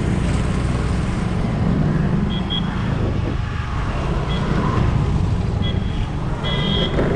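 Steady road noise of a motorcycle ride: a constant low rumble of engine and wind on the microphone, with passing traffic. Short high-pitched beeps come several times, the longest and loudest near the end.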